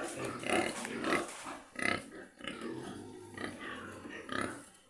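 Pigs making a run of short, irregular calls.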